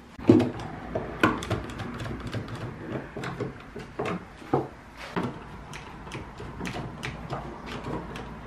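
One-handed trigger bar clamps being ratcheted tight and knocking against a wooden workbench as a pine board and a plastic rafter square are clamped down: a string of irregular clicks and knocks, the loudest just after the start and about a second in.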